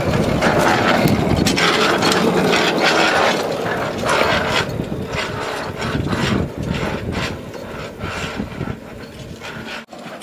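Handcar rolling along the track: a steady mechanical clatter of wheels on rails and the pump-lever gearing, full of quick clicks, growing quieter over the second half.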